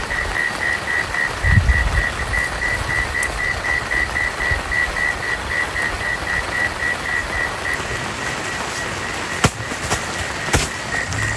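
A frog calling in a steady, quick series of high pulses over a constant hiss of rain. Two sharp clicks come near the end.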